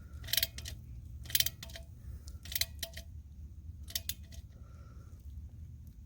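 Short metallic clicks in pairs, about one pair a second, from a wrench tightening the Red Head anchor bolts that hold the umbrella pole in the concrete, over a steady low hum. The clicks stop after about four seconds.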